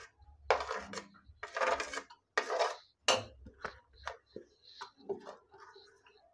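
A steel spoon scraping and knocking against a plate and an aluminium pot as cooked rice is spooned into the pot: three scraping strokes, a sharp knock about three seconds in, then lighter clicks.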